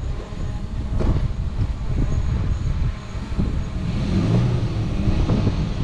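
Toyota Tacoma pickup's engine running at crawling speed as the truck creeps down a rock chute, a low rumble with scattered knocks, its engine note steadying about four seconds in.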